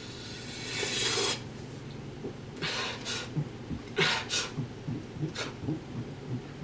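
Noisy breathing through the mouth: a long rushing breath swelling from about half a second in, then several short, sharp breaths with soft low clicks in between.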